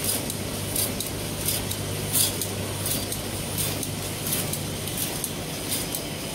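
Automatic cutlery wrapping machine running: short sharp hisses of air from its pneumatic cylinders and valves repeat about every two thirds of a second, over a steady machine hum.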